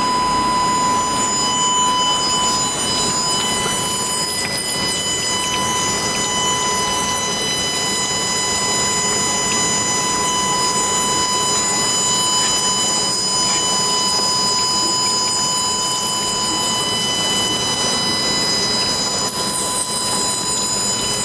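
Wedge wire screen welding machine running: a steady mechanical hum and hiss with several constant high-pitched whine tones.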